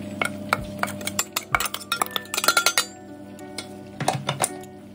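A steel spoon scraping and tapping against a stainless-steel mixer-grinder jar, knocking out freshly ground millet flour: a run of quick metallic clicks and scrapes that thins out about three seconds in, with a few more taps near the end.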